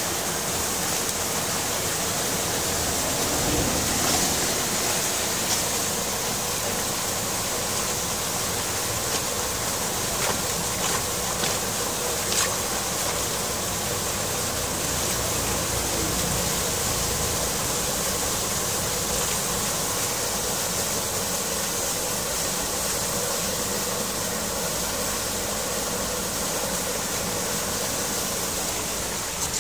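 Muddy floodwater rushing steadily through a clogged concrete culvert grate as debris is cleared from its bars, with a few sharp clicks of debris and stick against the grate.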